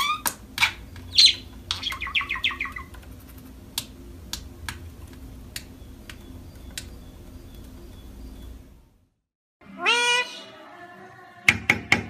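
A pet parrot chirping and whistling in quick falling sweeps, followed by scattered sharp clicks. After a brief silence, a single rising, meow-like call comes about ten seconds in.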